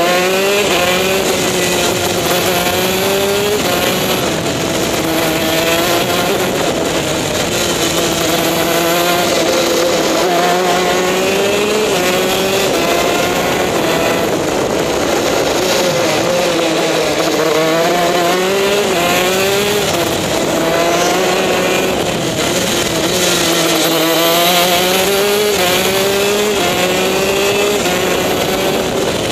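TM K9C 125 cc two-stroke shifter kart engine running hard on track. Its pitch climbs and drops back again and again as it revs up and shifts up and down through its six gears.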